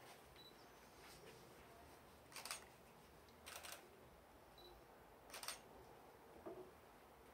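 Three short, sharp noises, each about a third of a second long, at about two and a half, three and a half and five and a half seconds in, over a quiet room.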